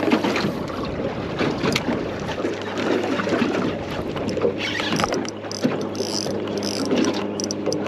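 Wind and water noise around a small fishing boat. A steady low hum comes in about two and a half seconds in, with brief hissy bursts later on.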